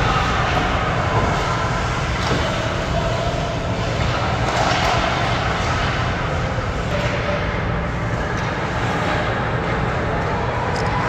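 Indoor ice rink during hockey practice: a steady low rumble under the sound of skates and sticks on the ice, with a few sharp stick or puck clicks and faint distant voices of players and coaches.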